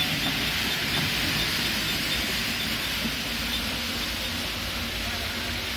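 Belt-driven muri (puffed-rice) roasting machine running steadily while making puffed rice: a constant low hum under an even hiss.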